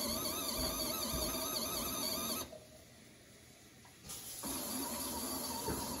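Mini portable washing machine's motor running a wash with a steady, wavering whine. It stops about two and a half seconds in and starts again about a second and a half later.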